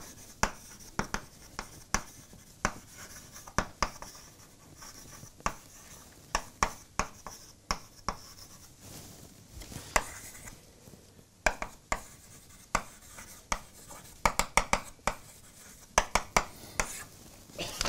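Chalk writing on a blackboard: a run of irregular sharp taps as the chalk strikes the board, with faint scratching strokes between them.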